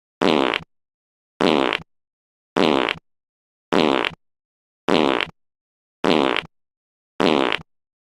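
Fart sound effect played on a loop: seven identical short blasts, about one a second, with dead silence between them.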